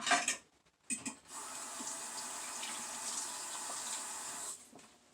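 A steady stream of liquid pouring for about three seconds, starting a little over a second in, with a couple of short knocks just before it.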